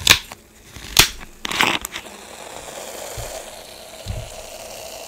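Screw cap twisted off a plastic bottle of diet 7-Up: two sharp cracks as the seal gives, then a short hiss of escaping carbonation about a second and a half in.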